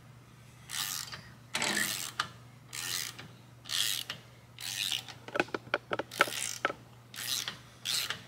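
Hand ratchet worked back and forth in strokes about once a second, its pawl rasping on each return swing, with a few sharp metal clicks in between. It is turning the threaded shaft of a bearing installer tool to draw a new cam bearing into the engine case.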